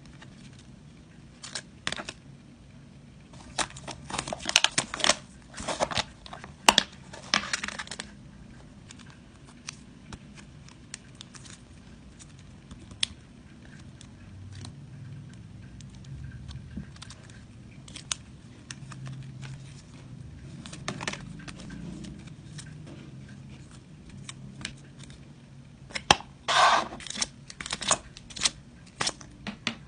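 Photocards in clear plastic sleeves and toploaders being handled and shuffled: crinkly plastic rustling and clicking. There are louder flurries a few seconds in and again near the end, where a quick run of sharp clicks comes as the cards are laid out.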